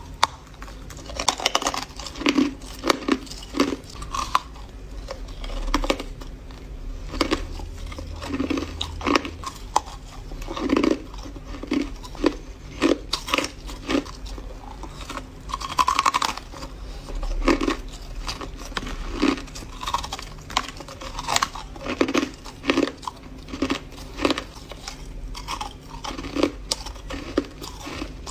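Hard crushed ice being bitten and crunched between the teeth, a fast string of sharp crunches.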